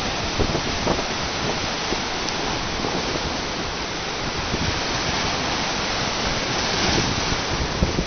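Pacific Ocean surf breaking and washing over shoreline rocks in a steady rush, with a louder surge near the end. Wind buffets the microphone throughout.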